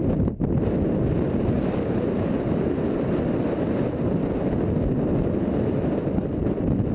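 Wind buffeting the microphone of a rider-mounted camera on a galloping racehorse: a steady, loud, low rumble of rushing air, with one short dip about a third of a second in.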